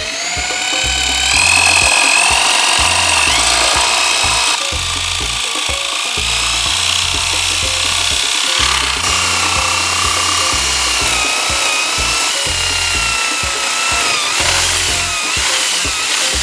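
Electric drill with a spade bit boring into a wooden log: a continuous motor whine that rises as it spins up, then wavers and sags in pitch as the bit bites, over the scraping of the wood being cut.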